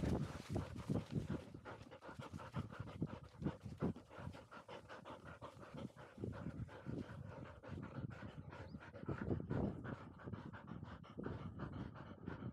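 Labrador retriever panting rapidly and rhythmically, heard close up.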